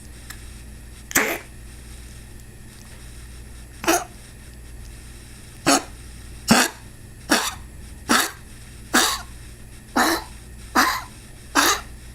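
A pet coughing: about ten short, sharp coughs, only two in the first four seconds, then a run of them nearly one a second from about six seconds in.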